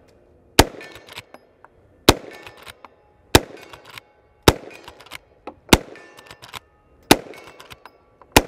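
Henry lever-action rifle in .45 Long Colt fired in a steady string, seven shots about one every 1.2 seconds. Between each shot come the lighter metallic clacks of the lever being cycled to chamber the next round.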